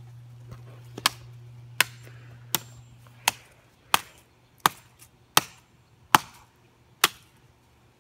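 Hatchet chopping down again and again to smash an iPod on the ground: nine sharp strikes, about one every three-quarters of a second.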